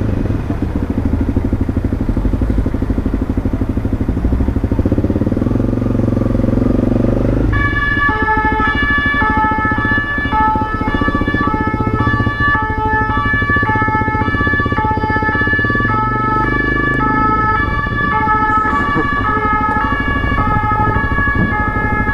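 Honda CRF250M single-cylinder supermoto engine running at low speed in traffic. About seven seconds in, an emergency vehicle's two-tone siren starts suddenly and keeps alternating between two pitches, about twice a second, over the engine.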